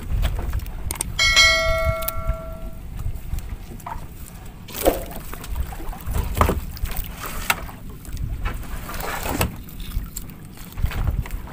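A bell chime from a subscribe-button animation, several ringing tones that start about a second in and fade out over a second or so. Under it, wind rumbles on the microphone, and scattered knocks and clatter come from handling on a wooden boat.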